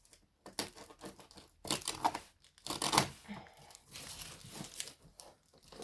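Packaging on a large cardboard box being torn open, with crinkling, in irregular bursts.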